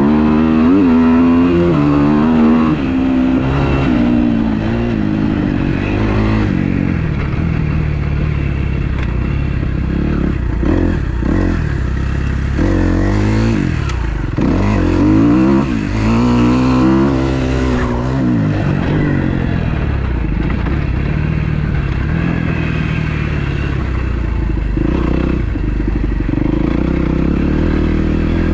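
Freshly rebuilt 2012 Kawasaki KX250F's four-stroke single-cylinder engine being ridden, the revs climbing and dropping over and over through gear changes and throttle.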